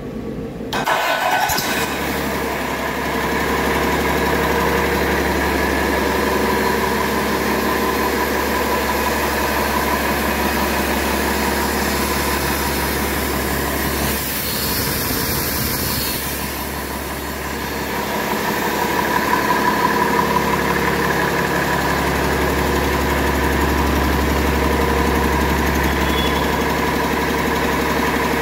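Cummins L9 inline-six turbo diesel on a test stand starting about a second in, then idling steadily, with a brief brighter hiss about halfway through.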